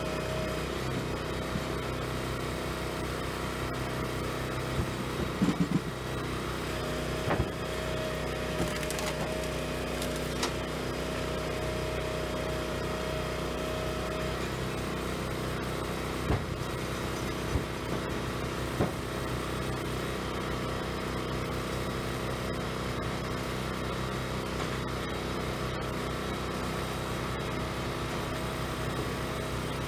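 Small firewood processor's engine running steadily, with sharp knocks and cracks of wood over it: a quick run of them about five seconds in, then single ones through the next fifteen seconds.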